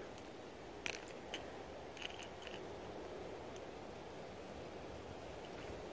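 Faint metallic clicks as the treble hooks of a spook topwater lure are worked free of a small largemouth bass's mouth by hand: several light clicks over the first half, then only a faint steady hiss.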